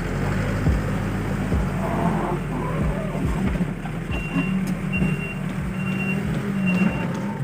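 Case 580L backhoe loader's diesel engine running steadily under work. In the second half its reversing alarm sounds four short high beeps, evenly spaced less than a second apart, as the machine backs up.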